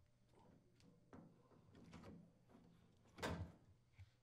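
Faint handling sounds of a front-load washer's dispenser hose and recirculation tube being pulled free from the rubber door boot seal: a few soft rustles, a louder brief rub a little over three seconds in, and a small click near the end.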